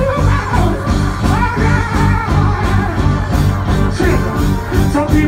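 Live reggae band playing a steady beat with bass and guitar, a singer's voice over it.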